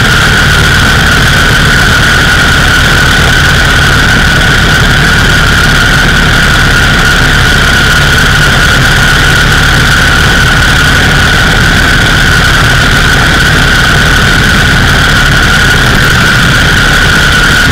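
Indian 101 Scout's side-valve V-twin running steadily at road speed, mixed with heavy wind rush on the bike-mounted microphone. A steady high whine sits over the engine throughout.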